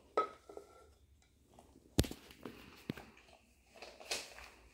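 A ceramic mug set down on a small wooden stool, giving a sharp knock about two seconds in, among a brief ringing clink near the start and a few lighter clicks and a rustle.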